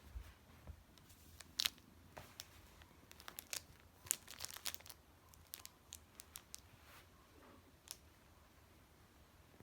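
Wrapped chocolates crinkling under a kitten's paws as it steps on them: scattered faint crackles of wrapper, thickest about three to five seconds in.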